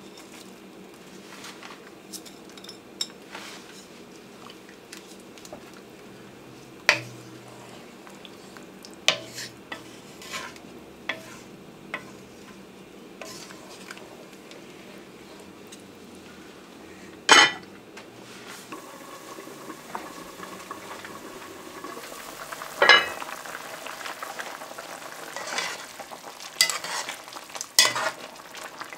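Soup being stirred in a large aluminium pot, first with a wooden spoon and later with a metal ladle, the utensil knocking sharply against the pot now and then. A steady low hiss runs underneath.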